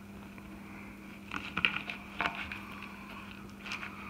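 Knife cutting into a small redfin perch on a plastic cutting board: a few short taps and scrapes in two clusters, over a steady low hum.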